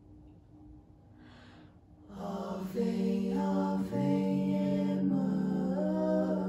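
A small vocal group comes in about two seconds in, singing long, held notes in harmony, with the separate voice parts moving against each other.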